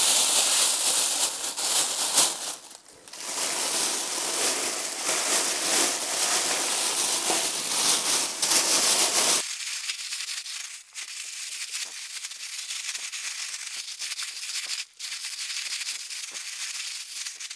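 Plastic roasting bag full of chopped vegetables crinkling and rustling as it is gathered shut and kneaded by hand. About nine seconds in the crinkling turns quieter and thinner.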